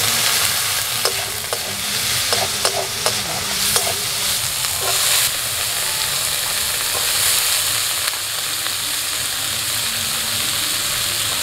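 Chopped banana stem sizzling steadily as it fries in oil in an aluminium wok. A metal spatula clinks and scrapes against the pan over the first few seconds as it is stirred.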